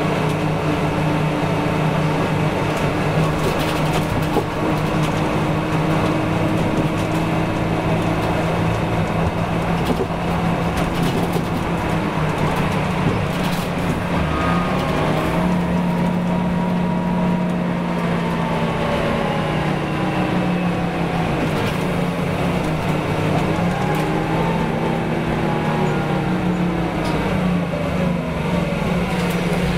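Scania 9-litre six-cylinder turbocharged CNG engine and ZF five-speed automatic gearbox of a city bus, heard from inside the cabin while driving. The engine hum is steady, with a whine whose pitch falls and rises several times in the second half as the bus changes speed.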